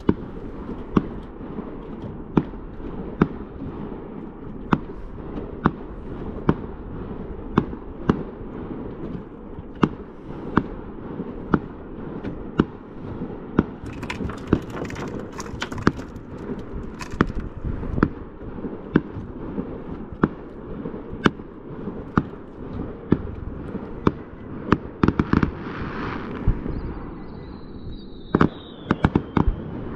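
Fireworks bursting, a sharp bang about once a second over a steady low rumble. Crackling stars come in around halfway through, and near the end a falling whistle is followed by a quick cluster of bangs.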